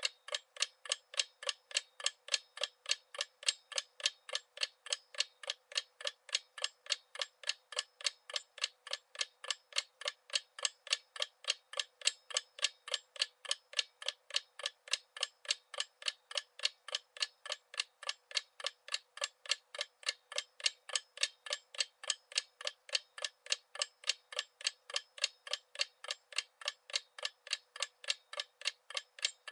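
Clock ticking steadily: a long even run of sharp tick-tock clicks, alternating slightly in loudness, at roughly two to three a second.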